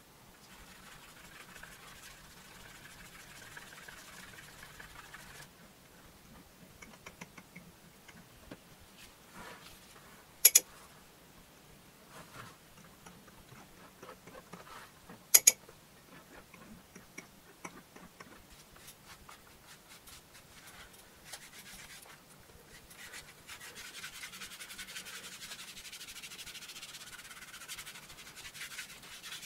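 Leather wallet being rubbed with a cloth pad: a soft, scratchy rubbing that becomes steadier and louder over the last several seconds. Before that there is quieter handling and rubbing of the leather, with two loud, sharp clicks about ten and fifteen seconds in.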